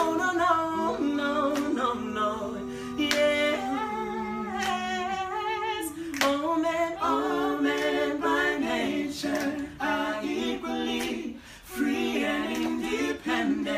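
A cappella vocal group singing wordless harmony, several voices holding and shifting chords together. Sharp clicks sound now and then over the voices.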